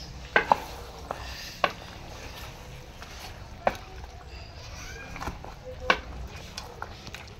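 A wooden spoon stirring a thick meat curry in an aluminium pot, knocking sharply against the pot about five times at irregular intervals.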